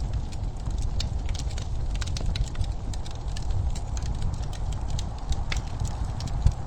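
Wood fire crackling in a fireplace: irregular sharp pops and snaps, several a second, over a steady low rumble of the burning logs.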